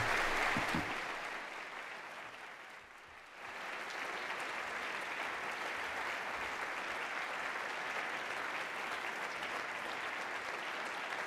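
Lecture audience applauding. The clapping fades to a lull about three seconds in, then swells again sharply and carries on steadily.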